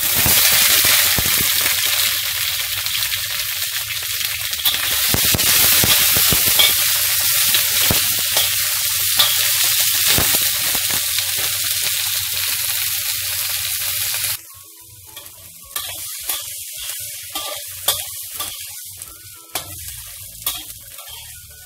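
Celery tipped into hot oil and garlic in a wok, sizzling loudly, with a metal spatula scraping and clicking against the pan as it is stir-fried. About fourteen seconds in the sizzle drops off suddenly, leaving the spatula's scrapes and taps over a softer frying hiss.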